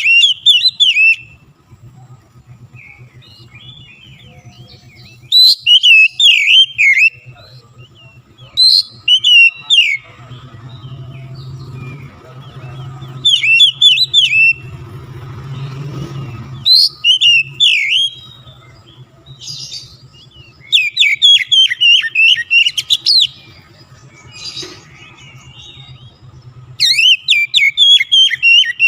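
Oriental magpie-robin singing in loud bursts of quick whistled and chattering phrases that sweep up and down, one burst every few seconds. A faint low hum runs underneath.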